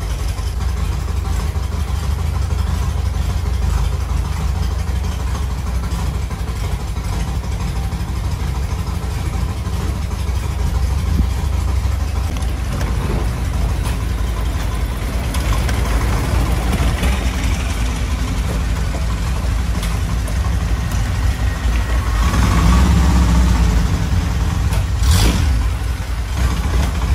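Longtail boat's inboard engine running steadily, a deep low drone that grows louder about twenty-two seconds in.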